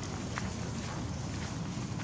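Wind rumbling on the microphone, a steady low noise, with a few faint ticks on top.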